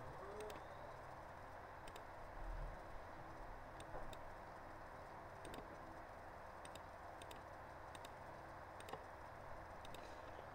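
A computer mouse clicking now and then, about a dozen scattered single clicks over a faint steady hiss.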